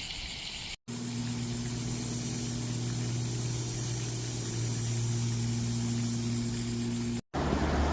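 A motor running steadily with a low, even hum, broken by two short total silences near the start and near the end.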